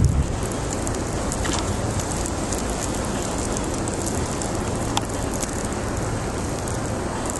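Steady hiss of a snowstorm: wind and driving wet snow, with a couple of faint ticks.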